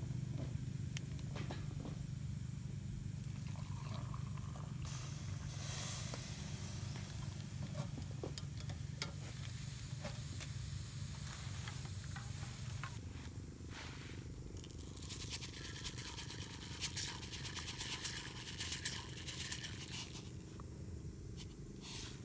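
Food cooking in a pot over a camp stove, with spells of stirring and scraping over a steady sizzle.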